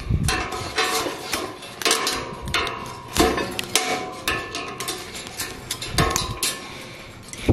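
Steel tie wire and pliers clicking and clinking against rebar as a wire tie is wrapped and twisted by hand, a quick irregular run of small metallic ticks with a few duller thumps.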